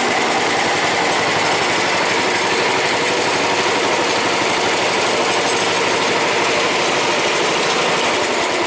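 Garden tractor engine running steadily just after a warm start; it fired right up.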